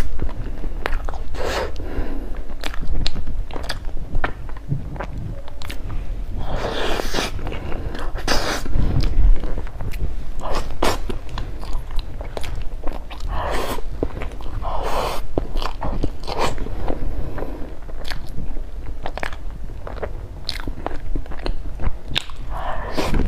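A person eating close to the microphone: bites and chewing with many small wet mouth clicks and crunchy bites.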